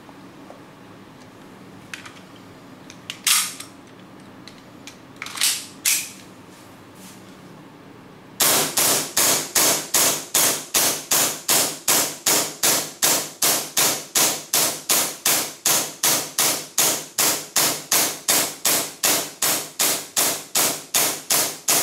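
WE Hi-Capa gas blowback airsoft pistol on green gas firing shot after shot at an even pace, about three a second, each a sharp crack of the shot and the slide cycling, fed from a Prowin extended magazine. Before the string starts, a few isolated sharp clacks.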